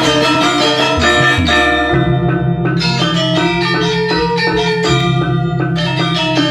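Balinese gamelan gong kebyar playing a kebyar piece: many bronze metallophones ringing in fast interlocking patterns over a sustained low drone, with hand drums. A deeper low tone swells briefly about a second in, and the high ringing thins out for a moment twice.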